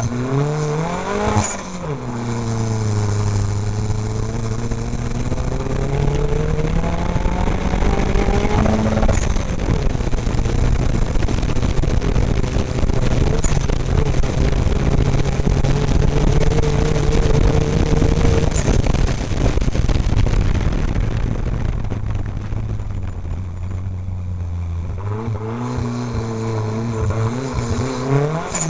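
Off-road race vehicle's engine heard from inside the cab, its pitch rising and falling repeatedly as the driver accelerates and lifts around the course. Through the middle a heavy rumble and rattle of the ride over rough ground nearly covers the engine note.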